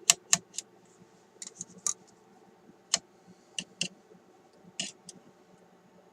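Rotary wafer band switch of an RCA M-45 tube radio being turned back and forth, clicking through its detents in a series of irregularly spaced clicks, some faint, while contact cleaner is worked into its contacts.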